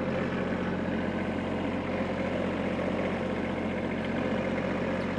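Kubota B2301 compact tractor's three-cylinder diesel engine running steadily at idle.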